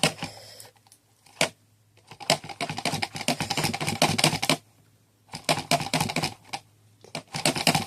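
Magic Mixies Pixlings plastic potion-bottle toy being worked by hand, giving three bursts of rapid clicking with short pauses between, after a couple of single clicks.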